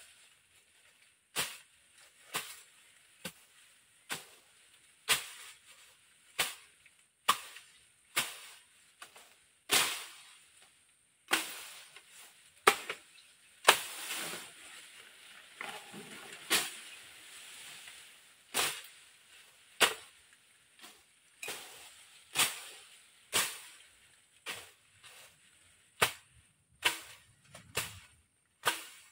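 Machete (bolo) strokes slashing through brush and grass, sharp hits about once a second at an uneven pace, with a few seconds of rustling about halfway through.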